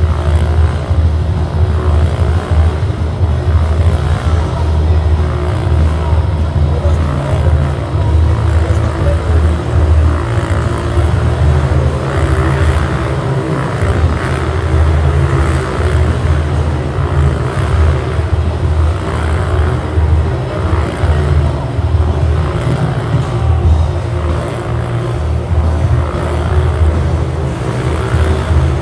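Motorcycle engines running loud and steady as the bikes ride laps inside a steel-mesh globe, with a brief drop about halfway through.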